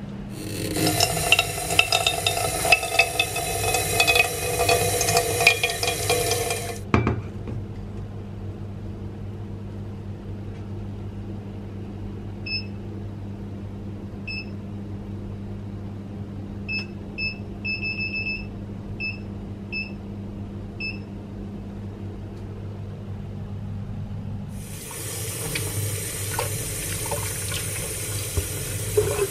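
Rushing water for the first several seconds, then a series of short electronic beeps from a cooktop's touch-control panel as its buttons are pressed, one of them longer than the rest. Near the end, a kitchen tap runs into a stainless steel sink as a sweet potato is rubbed clean under the stream.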